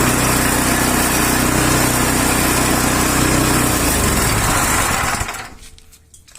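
Small engine driving a coconut dehusking machine, running steadily and then shut off: it slows down about four seconds in and stops a second or so later.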